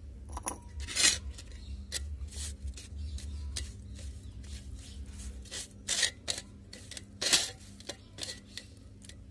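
Fingers scraping and squishing a spice paste of chilli powder, turmeric, salt and wet garam masala with lemon juice around a steel plate: irregular scrapes and taps on the metal, the loudest about a second in and near six and seven seconds.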